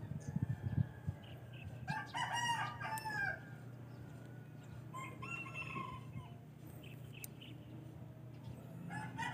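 A rooster crowing twice, each crow a long pitched call of about a second, with a third crow beginning near the end, over a steady low hum.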